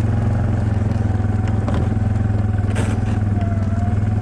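2007 Yamaha Kodiak ATV's single-cylinder engine running steadily as the machine drives along, with a faint steady whine above it. A brief hiss comes about three seconds in.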